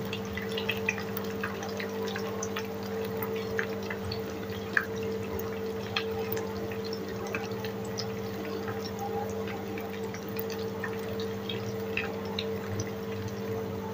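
Potato sticks deep-frying in hot oil: steady sizzling with scattered small pops and crackles, over a steady low hum.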